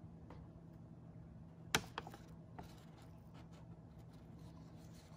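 A folded paper printout being handled: one sharp crackle a little under two seconds in, then a few fainter crackles, over a low steady hum.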